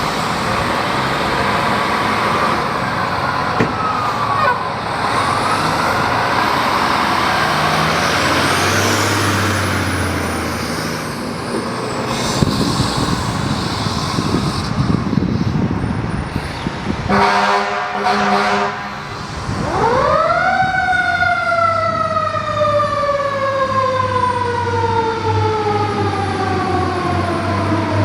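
Fire ladder truck responding under emergency warning: heavy engine and road noise, a long air horn blast about 17 seconds in, then the siren winds up sharply and slowly falls in pitch over several seconds, winding up again near the end.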